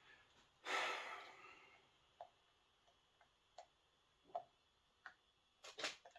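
A short hiss about a second in, then faint, irregular small clicks, about six spread over the next few seconds, with a louder cluster of clicks near the end.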